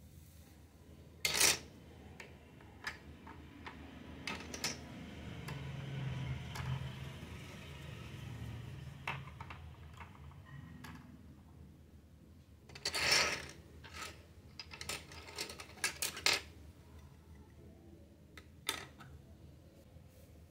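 Small plastic toy kitchen utensils and dishes being handled and set down on a table: scattered light clicks and clatters, with louder clattering about a second in and again around thirteen seconds in.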